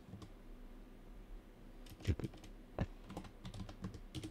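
Keystrokes on a computer keyboard: scattered key presses at an uneven pace, with a couple of louder taps about two and three seconds in.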